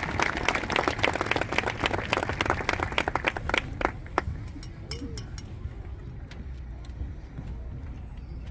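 Crowd in the stands applauding, the clapping thinning out about four seconds in to a few scattered claps and low voices.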